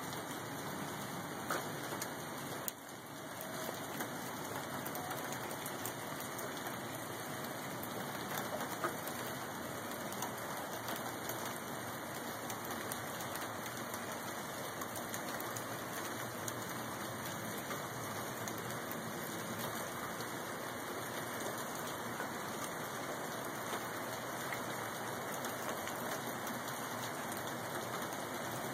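Heavy wet snow falling through trees and onto dry leaves and the ground: a steady hiss with a few sharper ticks.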